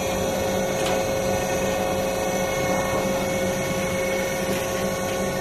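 Packing-peanut production machinery running steadily: electric motors and a belt-driven stainless-steel unit making a constant hum with a steady higher whine, and a few faint ticks.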